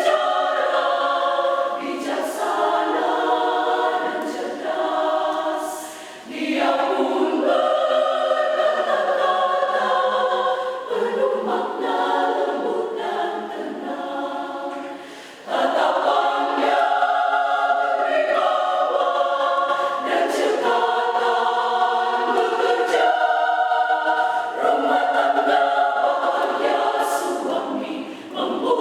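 Small women's church choir singing in harmony, with short breaks between phrases about six and fifteen seconds in.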